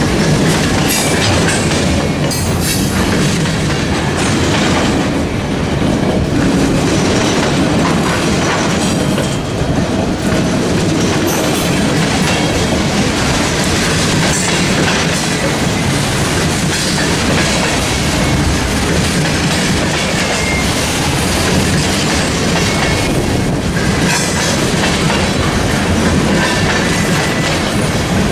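A train rolling past at a steady pace, loud and continuous, with steel wheels clicking irregularly over the rail joints.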